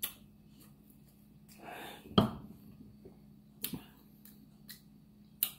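Close eating sounds: a few sharp clicks and mouth smacks while shrimp is eaten by hand. The loudest is a knock about two seconds in, just after a short rustle.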